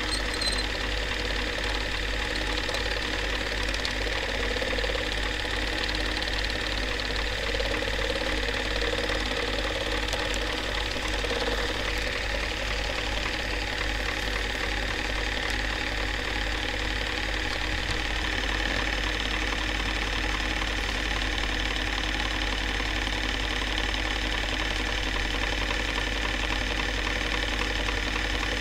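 Narrow-gauge home-movie film projector running: a steady, even mechanical clatter over a low hum.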